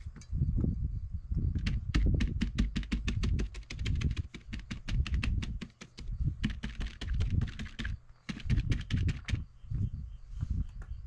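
Crumpled paper dabbed quickly against wet spray paint on a board, making quick, even taps in two runs, the first lasting about four seconds, over low thumps from handling.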